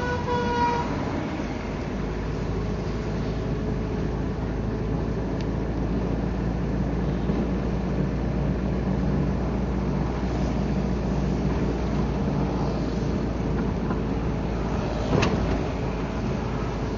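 Steady engine hum and tyre noise on a wet road, heard from inside a moving vehicle in traffic. A short high tone sounds right at the start, and a single sharp knock about fifteen seconds in.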